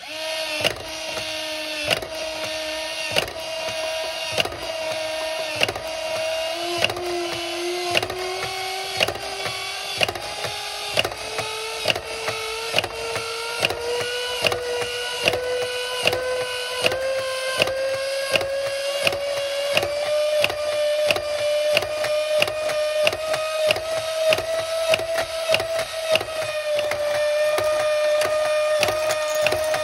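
Small electric motor and gear mechanism of a Minions coin-eating piggy bank running nonstop on a bench power supply, its whine rising slowly in pitch as the voltage is turned up well past its rating. Over the whine the mechanism clicks in a rapid, regular beat, with a louder knock about once a second.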